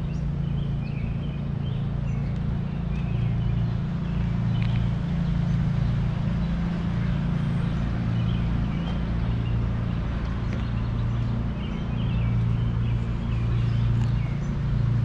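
Birds chirping repeatedly over a steady low rumble.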